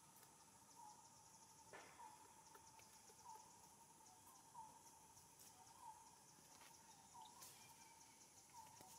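Faint outdoor ambience: a steady high insect drone, with a short rising note repeated about once a second and a few faint clicks.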